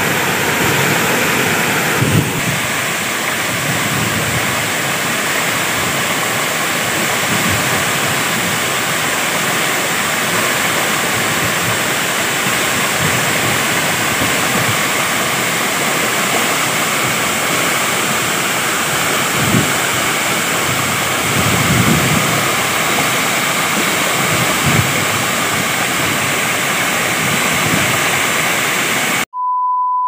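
Waterfall: water falling and crashing into its pool, a steady, loud rushing. Near the end it cuts off suddenly and a short steady beep sounds.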